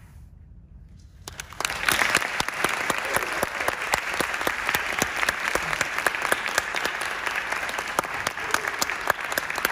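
A brief hush, then an audience starts applauding about a second and a half in, with many hands clapping at a steady level.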